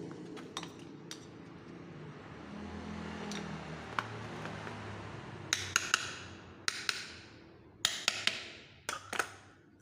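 Small hammer tapping on the metal gear housing of a rotary hammer. About ten sharp knocks come from about halfway in, in quick pairs and threes, each with a brief ring.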